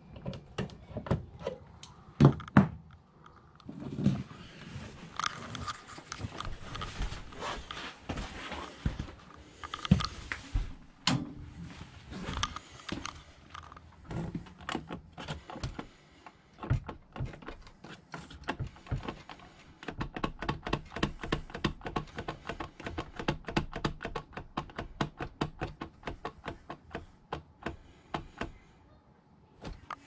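Handling sounds at an RV's 12-volt fuse panel: a few sharp knocks and thunks as a fuse is pushed back into its slot, the loudest a couple of seconds in. Later comes a long run of quick, even clicks, about four a second, as a wall thermostat's button is pressed over and over to raise the set temperature.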